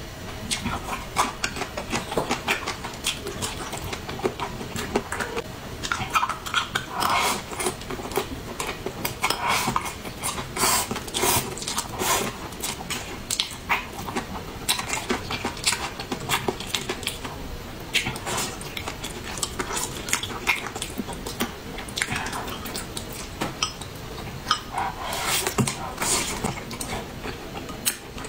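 Eating sounds: chewing and wet mouth smacks on braised ribs and rice, with chopsticks clicking against a glass bowl in a dense, irregular run of sharp clicks.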